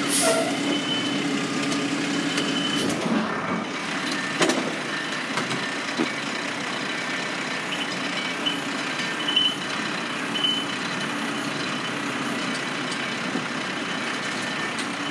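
Automated side-loader garbage truck idling as its hydraulic arm handles a trash cart at the curb: a steady diesel engine din with a few knocks, about four and a half and six seconds in.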